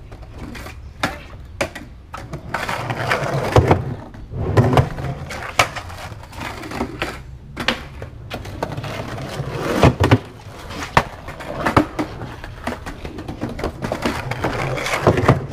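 Skateboard wheels rolling over concrete, with several sharp clacks and knocks of the board hitting the ground.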